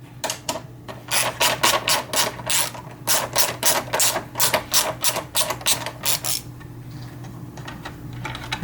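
Hand ratchet with a socket clicking in quick runs, about five clicks a second, as a bolt is turned out; the clicking stops about six seconds in.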